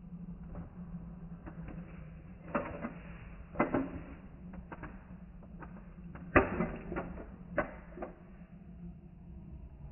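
Scattered knocks and clatters of small hard objects, the loudest about six and a half seconds in, over a steady low hum.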